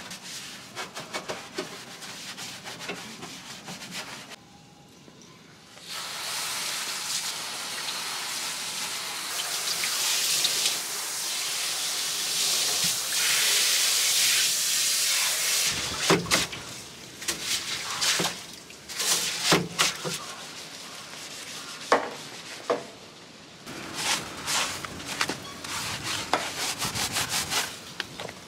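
Stiff hand brush scrubbing the soapy bare metal floor pan of a Jeep TJ Wrangler in quick rasping strokes. About six seconds in, a garden-hose spray nozzle showers water onto the floor for about ten seconds and stops abruptly. Irregular brush-scrubbing strokes follow.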